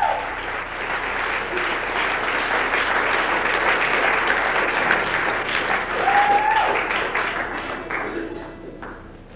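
Audience applauding after a song, the clapping fading away near the end.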